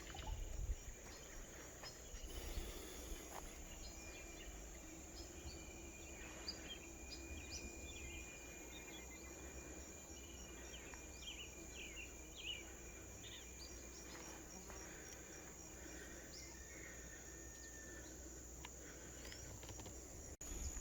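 Faint countryside ambience: a steady high-pitched insect drone, scattered short chirps through the middle, and a low rumble underneath.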